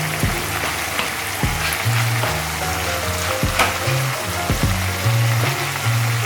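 Stir-fry pasta and vegetables sizzling in a frying pan, with occasional sharp clicks as they are stirred. Background music with a stepping bass line plays under it.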